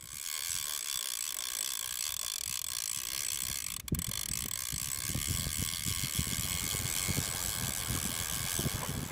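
Fly reel's click-and-pawl drag buzzing steadily as line is pulled off, with an uneven low rumble underneath from about four seconds in.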